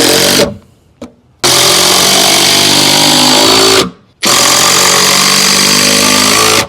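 Handheld power drill running in three bursts, a short one and then two of about two and a half seconds, its pitch sagging slightly under load as it drives fasteners to fix a lid in place.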